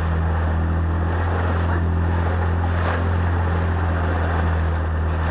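Small motorboat under way: its engine runs at a steady low drone, with water rushing along the hull and wind noise on the microphone.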